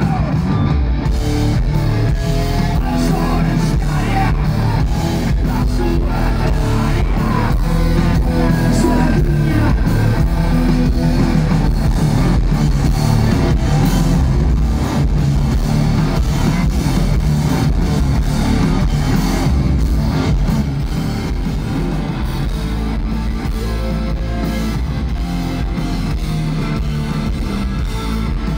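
Live rock band playing loudly: electric guitar and drums, with a singing voice. It gets a little quieter about two-thirds of the way through.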